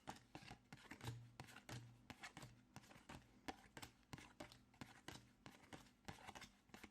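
Trading cards being flicked through and dropped onto sorting piles: a quick, irregular run of soft paper taps and slaps, a few every second.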